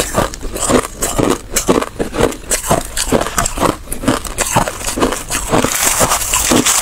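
Crushed ice being chewed and crunched between the teeth, close to the microphone: a fast, irregular run of crisp crunches, several a second.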